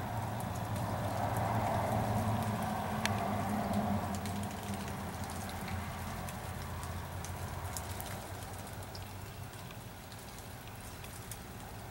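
Outdoor ambience: a steady low hum under a noise that swells over the first few seconds and then fades, with light scattered ticks and patter.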